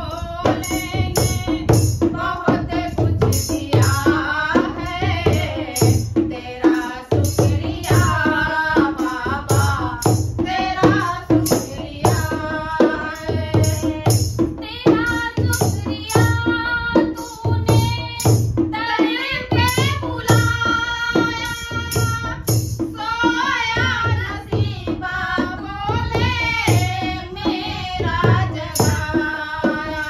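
Women singing a Hindi devotional bhajan, accompanied by a dholak hand drum beating a steady rhythm and a plastic jingle clapper shaking in time.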